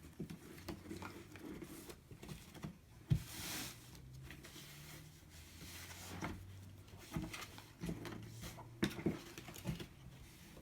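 Cardboard jigsaw puzzle pieces being moved, slid and tapped into place on a table: scattered light clicks and taps, with a brief rustle about three seconds in.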